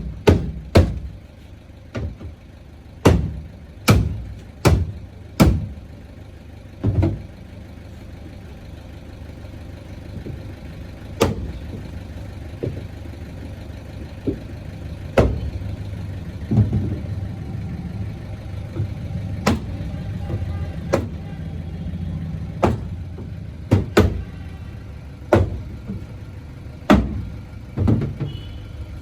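Hammer blows on a car's boot panel as a dent is worked out: sharp metallic knocks at irregular intervals, some in quick pairs, with a steady low rumble underneath from about eight seconds in.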